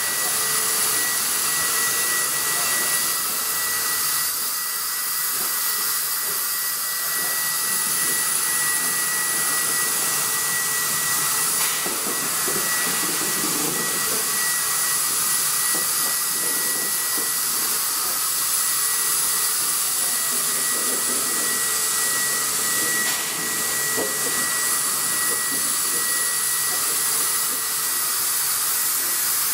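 NSW 59 class 2-8-2 steam locomotive 5917 venting steam in a steady, loud hiss with a thin high tone held through it, and a few faint clicks.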